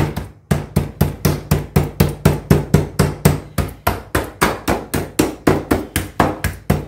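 Wooden meat mallet with a metal-capped head pounding raw marinated chicken breasts in a baking tray, about four even blows a second, beating the meat flat.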